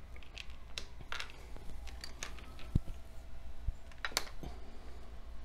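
Scattered light clicks and taps of small plastic parts and wire being handled on a Lego baseplate, with one sharper click a little before the middle.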